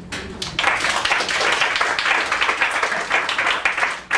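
Audience applauding, the clapping swelling within the first half second and then carrying on steadily.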